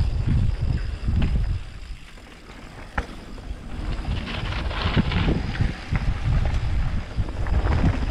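Wind rushing over the microphone and mountain bike tyres running over a dirt trail, with the bike rattling. It goes quieter for about a second and a half around two seconds in, with a sharp click near three seconds, then the rough tyre and wind noise picks up again.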